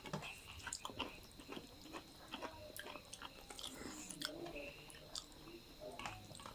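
Close-up eating sounds: irregular chewing with many small, quick clicks and smacks from mouths working through food. A faint, steady high-pitched whine sits underneath.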